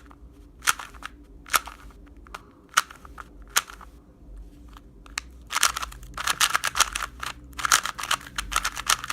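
Moyu Lingpo 2x2 speed cube being turned by hand: a few separate plastic clicks, then a quick run of clicking turns from about halfway in.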